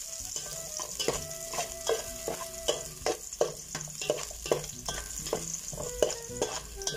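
Chopped garlic sizzling in hot oil in a metal pot, stirred with a metal spoon that clinks and scrapes against the pot many times: the sauté (gisa) stage. The sizzle is a steady high hiss under the clinks.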